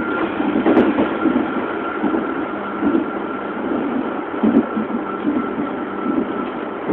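ISAP (Athens Metro Line 1) electric train running at top speed, heard from inside the carriage: a steady rumble with irregular knocks and a thin steady whine.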